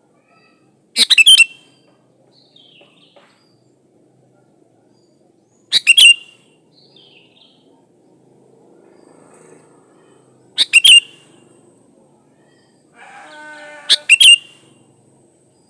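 Sooty-headed bulbul (kutilang) calling: four loud, short, sharp phrases spaced about four to five seconds apart, with softer chirps between them.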